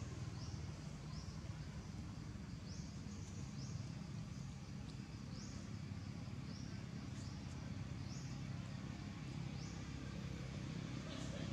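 Low, steady rumble of distant road traffic, with a thin high chirp repeating every second or so.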